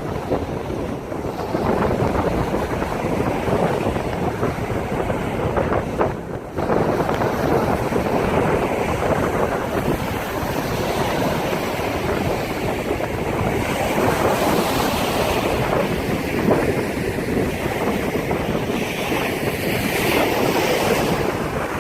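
Strong wind buffeting a phone's microphone over the steady rush of big waves breaking on the shore, with a brief lull in the wind about six seconds in.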